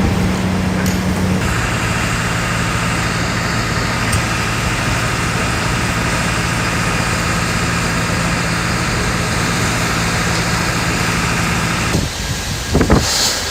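Steady engine hum with a rushing noise over it, changing abruptly about a second and a half in and again near the end.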